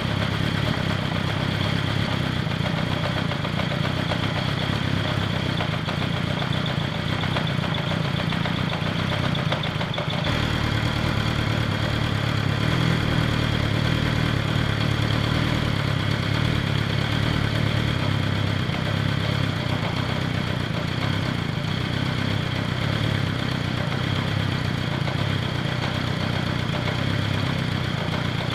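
Kawasaki Zephyr's air-cooled inline-four engine idling steadily, its sound shifting slightly about ten seconds in.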